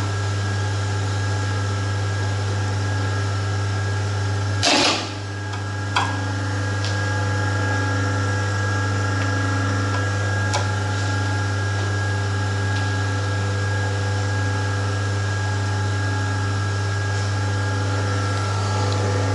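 A semi-automatic metal zipper slider mounting and bottom stop machine running with a steady motor hum. About five seconds in comes one loud, short stroke of the machine, followed by a few light clicks.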